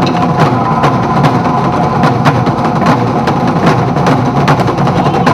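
Loud percussive accompaniment music for a contemporary dance piece: sharp struck hits at an uneven pace over a sustained droning bed of sound.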